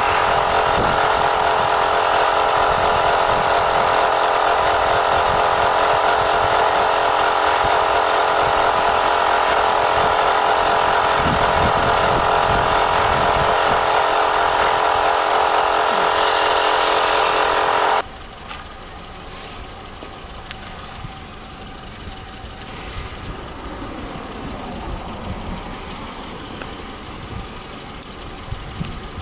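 Portable air compressor running steadily, pumping air into the tyre through the hose on its valve, then switched off and cutting out suddenly about two-thirds of the way through; a quieter background follows.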